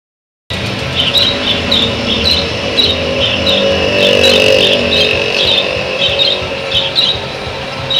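Street traffic running past, with a high squeak or chirp repeating about three times a second above it. The sound starts suddenly about half a second in.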